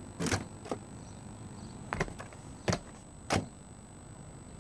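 Cartoon sound effects: about five short clicks and swishes, spaced a half-second to a second apart, over a faint steady background.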